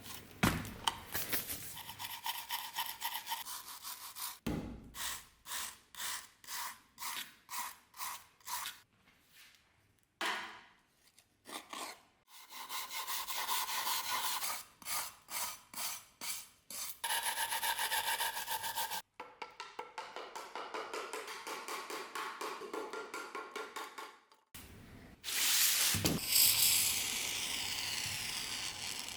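Repeated back-and-forth scraping and rubbing strokes, about two a second, from hand work on an old rusted metal box, in several short cut-together stretches with a steadier hissing rasp near the end.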